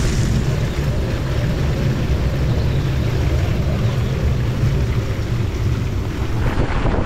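Strong storm wind blowing across a sailboat's deck and over the microphone: a loud, steady low rumble with a hiss of wind-driven rain and spray above it.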